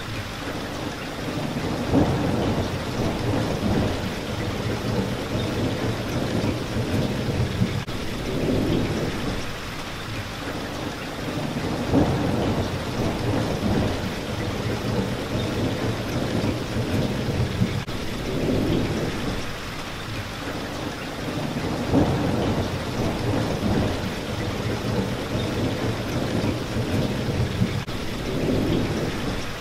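Steady rain hitting a window pane, with low thunder rumbling underneath that swells and fades every few seconds, rising more sharply about every ten seconds.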